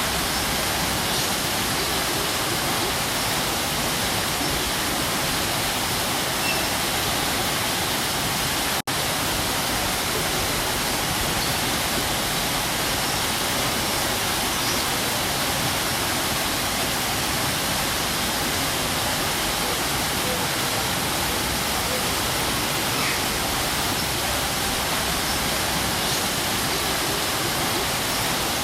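Waterfall pouring steadily as a constant, even rush of water, with a split-second dropout about nine seconds in.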